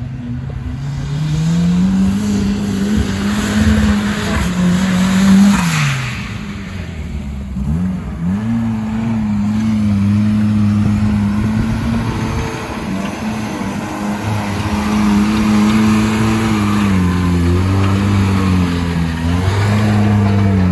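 Off-road vehicle's engine revving, its pitch climbing in the first couple of seconds, dropping back briefly around six to eight seconds in, then held high again with a few dips near the end.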